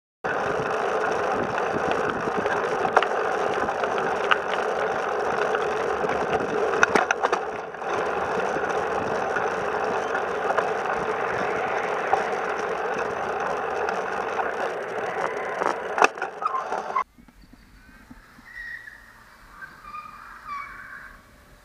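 Steady rushing noise of a bicycle being ridden along a paved cycle path, tyre roll and wind on the microphone, with occasional clicks and rattles. It cuts off abruptly about 17 seconds in, leaving only faint outdoor sounds.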